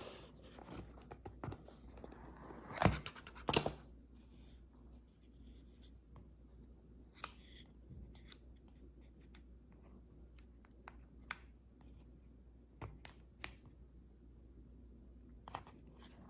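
Phone box and packaging being handled: scattered small clicks, taps and scrapes of cardboard and plastic, with two louder crackling rustles about three seconds in.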